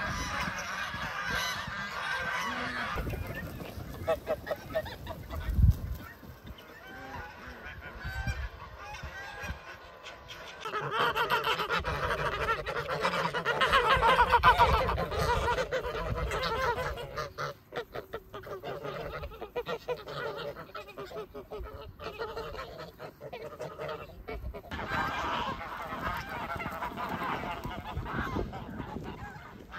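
A flock of domestic geese honking, many calls overlapping, loudest and busiest in the middle stretch. A dull low thump about six seconds in.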